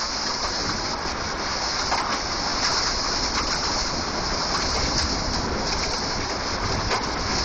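Gale-force storm wind blowing hard and steadily, with a constant hiss and a low rumble of the gusts buffeting the microphone.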